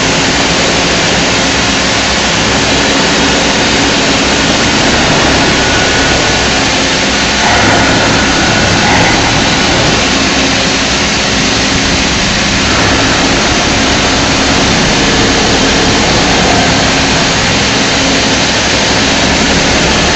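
CNC milling with a TERA THL300 high-frequency spindle (rated 30,000 rpm) cutting S45C steel with a 0.7 mm ball end mill under a mist-coolant spray. It makes a loud, steady hiss with faint steady tones through it. The hiss grows slightly stronger about seven seconds in and eases back around thirteen seconds.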